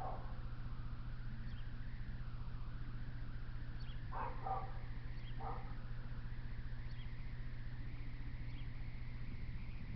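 A few short animal calls, heard at a distance, about four to five and a half seconds in, over a steady low hum.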